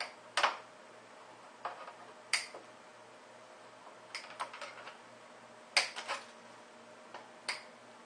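Side cutters snipping the tails off plastic zip ties: a series of sharp snaps, one every second or two, some in quick pairs.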